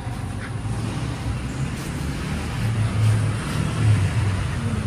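A car moving along a road: steady engine and tyre noise.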